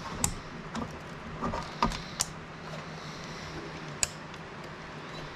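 Push-pin fasteners of an Arctic CPU cooler clicking as they are pressed into the motherboard's mounting holes: four sharp plastic clicks spread over a few seconds, with a few lighter handling knocks between them.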